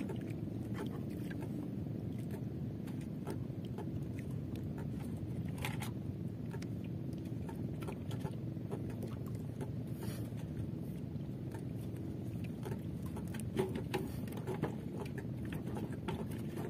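Steady low rumble with scattered light clicks and taps of fishing line and hooks being handled, and a few louder taps about three-quarters of the way through.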